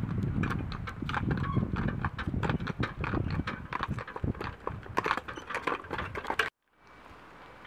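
Hooves of a pair of draught horses clip-clopping on a paved road as they pull a cart past at a walk, a quick irregular run of hard clacks. It stops abruptly about six and a half seconds in, leaving a faint steady hiss.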